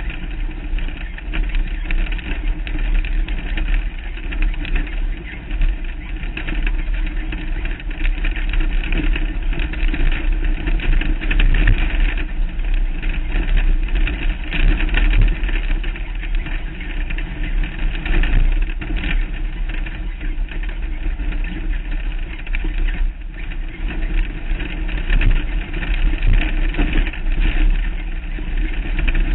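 Off-road race vehicle driving fast on a desert dirt track: engine running under load, with heavy wind rumble on the hood-mounted camera.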